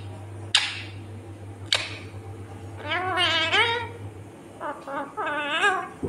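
Indian ringneck parrot calling: two short sharp squawks in the first two seconds, then two longer warbling calls of wavering pitch, one around the middle and one near the end.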